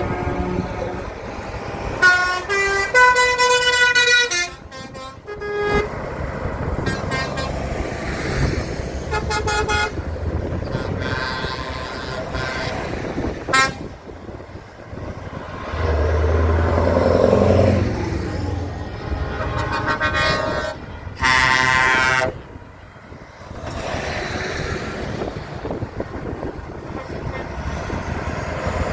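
A convoy of heavy trucks driving past with their diesel engines running, while their horns sound again and again. A horn steps through several pitches about two to five seconds in, shorter toots follow around ten and thirteen seconds, and a loud long horn blast comes about three-quarters of the way through.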